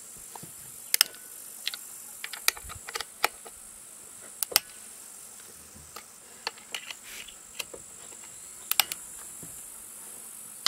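Irregular light clicks and ticks of an Allen key and small screws against the plastic housing of a chainsaw as the starter cover screws are undone, over a steady high insect chirring.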